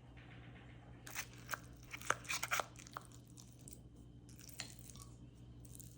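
Low, steady electric hum of a small kitchen appliance running, switched on at the start and cutting off near the end, with scattered crunching and crackling clicks about one to three seconds in as the cats' food is prepared.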